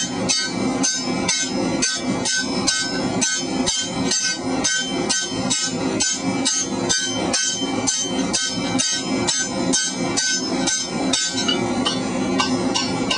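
Blacksmith's hammer striking hot steel pipe over a tapered shouldering tool on the anvil, an even run of about three blows a second with a ringing tone, tapering the pipe's tip down gradually as it is turned. The hammering stops about eleven seconds in.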